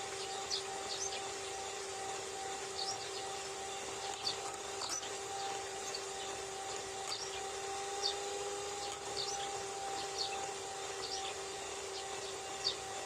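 Small birds chirping again and again over a steady electric motor hum that holds one low pitch with a higher overtone.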